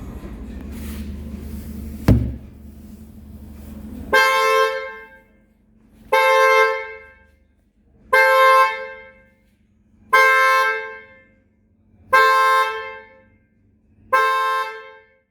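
Hyundai Santa Fe DM's horn sounding six even honks about two seconds apart, the repeating pattern of the car alarm going off. Before the honks there is a steady low rumble and a sharp knock about two seconds in.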